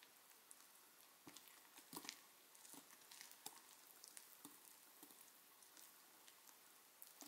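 Faint wire whisk stirring pancake mix, milk and egg into a thick batter in a bowl, with soft, irregular clicks and taps of the wires against the bowl.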